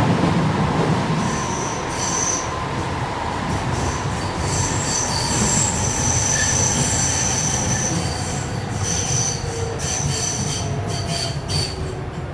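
Ganz-Mávag M1 metro car running, heard from inside, with a steady low rumble. High-pitched metallic squeals come from the running gear, once briefly about a second in and then almost continuously from about four seconds on. A fainter whine slowly falls in pitch.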